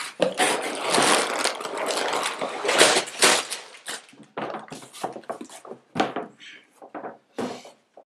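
Hands handling Lego bricks and plastic parts bags: a dense rustling for the first few seconds, then scattered clicks and rattles of plastic pieces, cutting off abruptly just before the end.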